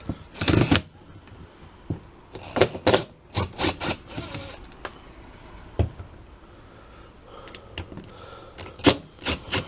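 Short clicks and knocks of hand tools and metal parts handled on a motorcycle carburetor while the screws of its top cover are worked loose, in several small clusters with quiet gaps between.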